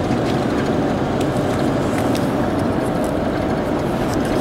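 Steady engine and road noise of a car driving at speed, heard inside the cabin, with a few faint clicks here and there.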